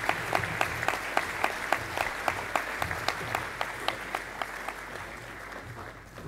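Audience applauding, a dense patter of many hands clapping that thins out and fades over the last couple of seconds.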